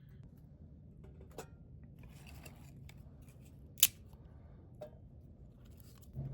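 Handling of a wick camp stove: scattered small clicks and light scraping, with one sharper, louder click a little past the middle.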